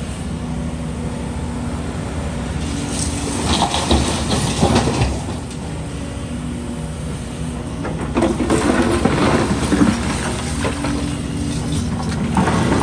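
Excavator diesel engine running steadily under load while concrete rubble crunches and clatters in bursts, twice in the middle and again near the end, as the bucket scrapes and moves debris.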